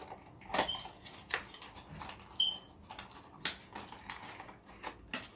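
Plastic packaging and craft supplies handled by hand: irregular crinkling and sharp clicks. A few short, high chirps sound in between, one a little under a second in and another about two and a half seconds in.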